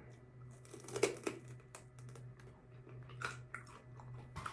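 Faint crinkling and scattered small clicks of takeout food packaging being handled, over a low steady hum.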